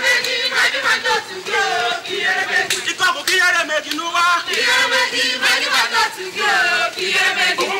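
A crowd of men and women chanting and singing together, with loud shouts over the singing.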